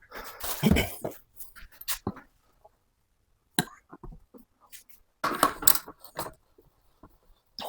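Small hard objects clinking and rustling as they are handled, in irregular bursts with short pauses.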